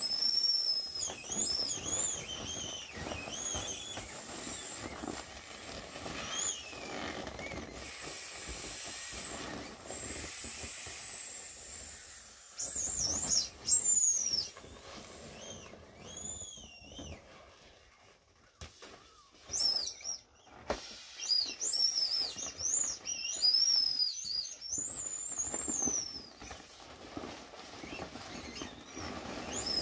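Inflatable vinyl bunny toys squeaking as they are squeezed and rubbed while being deflated: clusters of high-pitched squeaks that slide up and down, with a stretch of steady hiss in the first half and a quieter lull about two-thirds of the way in.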